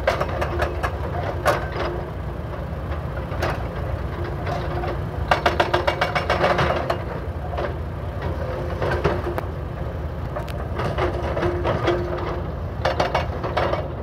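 Hydraulic breakers on SANY SY335C excavators hammering asphalt blocks in bursts of rapid blows, several times, over the steady running of the excavators' diesel engines.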